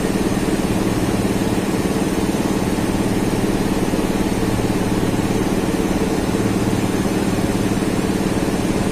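Steady mechanical drone of a running machine, an even hum that does not change.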